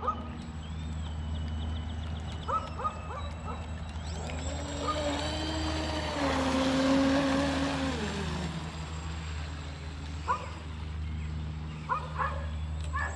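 Brushless electric motor of a Rage Supercat 700 BL RC catamaran whining as the boat makes a pass. The whine comes up about four seconds in, is loudest in the middle, then drops in pitch and fades away. Short chirps come before and after it.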